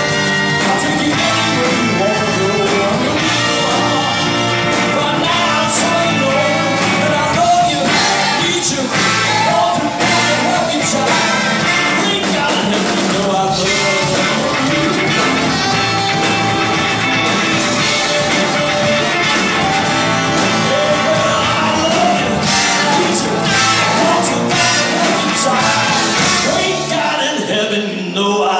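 A rock band with a horn section playing live, with singing. Near the end the bass and drums drop out and held voices carry on.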